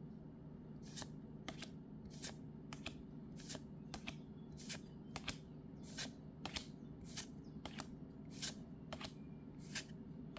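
Pokémon trading cards being flipped through one by one, each card slid off the front of the stack and onto the back with a short card-on-card swish, about two a second, starting about a second in.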